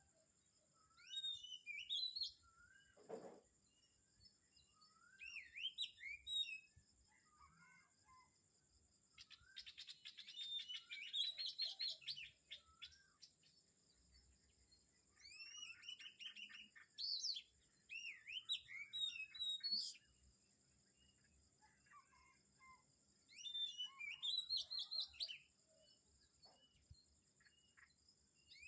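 Morning birdsong: birds chirping and whistling in bursts of quick, repeated phrases every few seconds. A steady high-pitched whine runs underneath.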